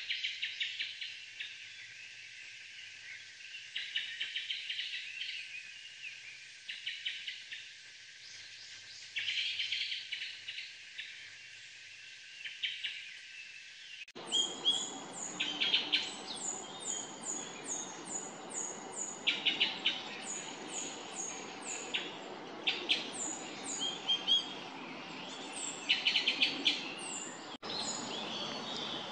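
Japanese thrush (Turdus cardis) giving its short "cho, chot, chot" calls, sometimes spaced out and sometimes in quick runs. About halfway through, a steady hiss of background noise comes up, and a series of thin, high, downward-sliding notes, roughly two a second, runs alongside the calls.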